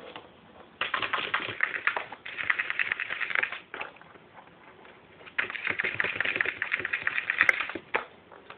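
A Holland Lop rabbit digging with its front claws inside a plastic tub, a rapid clicking scratch in two bouts of about three seconds each, the second starting a little after the middle.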